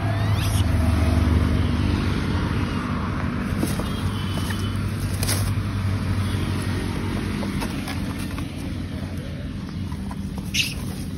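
A motor vehicle engine running close by, a steady low hum whose pitch shifts a little. There is a sharp click about halfway through and another near the end.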